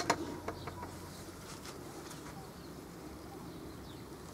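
Quiet room tone with a steady low hum and a few soft clicks and rustles in the first second, as a nylon cast net is handled.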